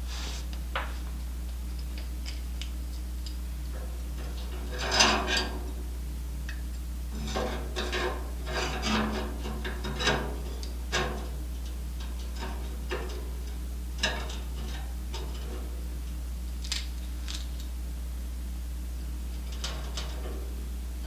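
Metal parts and hand tools being handled, with scattered clicks and a clatter about five seconds in and again a few seconds later, over a steady low hum.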